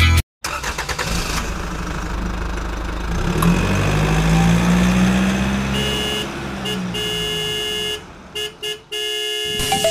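A motor vehicle's engine running, its pitch rising and then falling over a few seconds. Steady high tones come in after about six seconds and cut in and out near the end.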